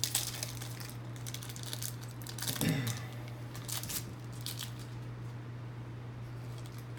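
Foil trading-card pack wrapper crinkling and tearing as it is opened, with cards being handled: quick sharp crackles for the first five seconds or so, then quieter rustling. A steady low hum runs underneath.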